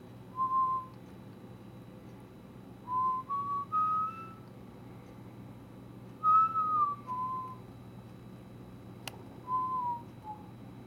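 A person whistling a slow tune in four short phrases of a few notes each, the notes stepping up and down in pitch with pauses between phrases, over a steady low hum.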